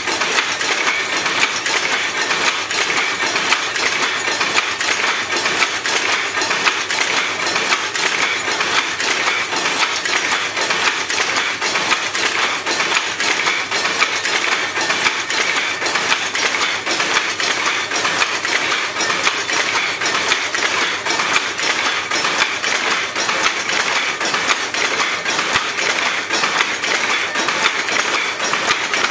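Power loom running: a fast, steady metallic clatter of its moving parts.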